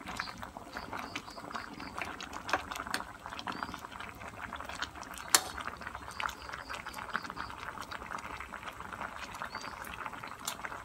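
Pot of moringa-pod curry at a rolling boil, a steady bubbling and crackling, with one sharp tap about five seconds in.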